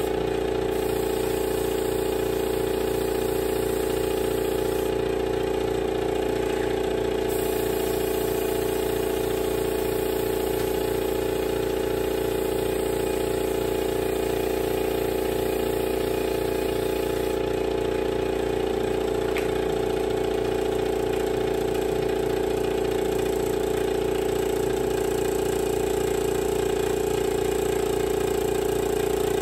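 Air compressor running with a steady, unchanging drone.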